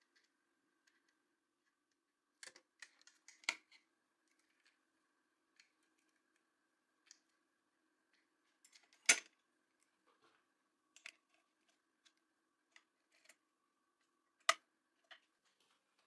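Small clicks and knocks of a clear acrylic controller case being handled, screwed together and fitted onto the aluminium frame of a CNC router, with a short flurry about two and a half seconds in and the sharpest knocks about nine and fourteen and a half seconds in. A faint steady hum runs underneath.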